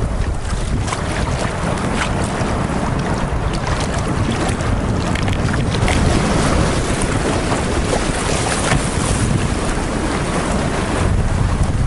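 Wind buffeting the microphone over the steady rush of fast river water around a moving canoe.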